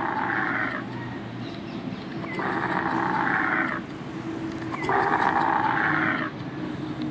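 Camel calling three times, rough bellows of a second or more each, over a steady low rumble.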